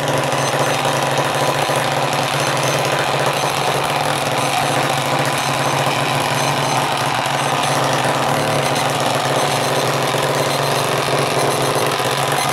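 Sonic Shaker vibrating alarm clock's vibration motor running at full strength, the unit buzzing and rattling hard against the surface it sits on. It starts suddenly, holds steady and loud, and cuts off at the end.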